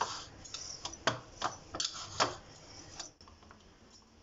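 Hot rice-flour dough being mashed in a steel plate: irregular light clicks and taps of metal against the plate's rim and base, about seven in the first three seconds, then a few faint ones.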